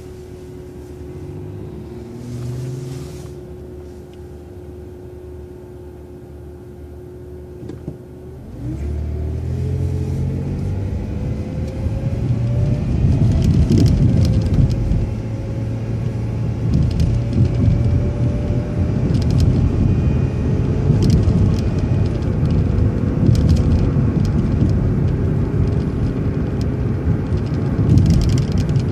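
City transit bus sitting with a steady hum for about eight seconds, then pulling away: a rising whine from the drivetrain as it accelerates, followed by steady engine and road noise at speed.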